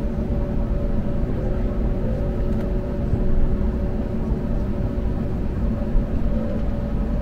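Steady cabin noise of an Airbus A321neo: a low rumble with the engines' even hum of a few fixed tones, holding level throughout.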